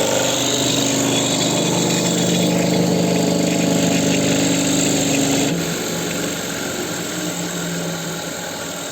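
Lawn mower engine running steadily; about five and a half seconds in its pitch drops and it gradually gets quieter.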